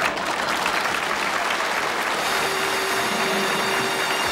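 Studio audience applauding steadily at the end of a comedy sketch.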